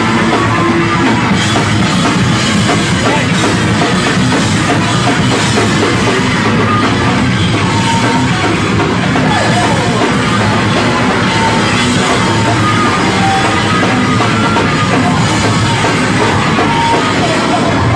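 Loud live noise rock from a bass-and-drums duo: heavily distorted bass guitar over a drum kit, playing without a break.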